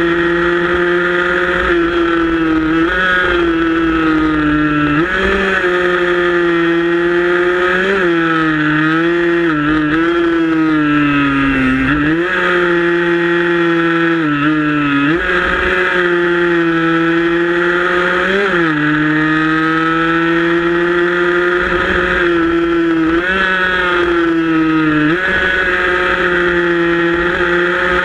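Onboard sound of a 115 cc racing motorcycle's single-cylinder engine held high in the revs, loud and steady, its pitch dropping briefly and climbing back about ten times at gear changes and corners.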